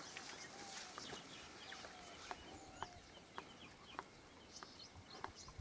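Faint bird calls and chirps, with about four light, sharp clicks between two and four seconds in.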